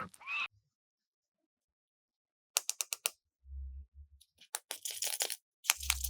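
Three quick runs of sharp clicking, consistent with plastic toy pieces being handled and snapped together, with low handling rumbles between the runs.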